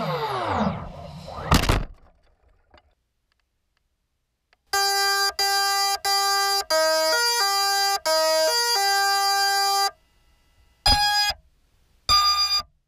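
Background music slows to a stop, its pitch sliding down. After about three seconds of silence, a simple electronic beeping melody of changing notes plays for about five seconds, then two short electronic beep notes sound near the end.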